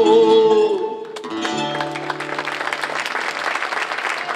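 The singer's held final note with vibrato ends just under a second in. At about a second and a half the band's guitar, bouzouki and electric upright bass strike one last plucked chord that rings out, while the audience begins applauding.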